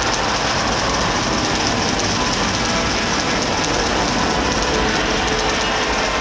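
Saturn V rocket launch roar reproduced through a theater's loudspeakers: a loud, unbroken rumble with a hiss on top, at ignition and liftoff.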